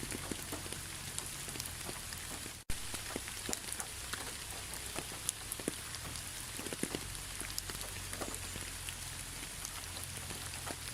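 Steady rain falling, with individual drops pattering and ticking over a continuous hiss and a low rumble. The sound drops out for an instant about three seconds in.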